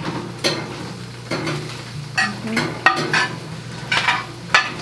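Kitchen cookware clattering and clinking as someone rummages low in a cabinet, in a string of irregular knocks over a steady low hum.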